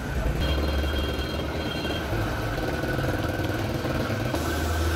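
A steady low mechanical rumble with a faint high whine. A brighter hiss joins about four seconds in, from a gas torch flame played on the metal air filter housing.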